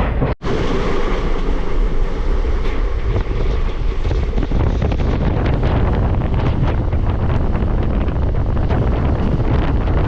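Wind buffeting the microphone over the steady rumble of a moving passenger train. The sound drops out for an instant near the start.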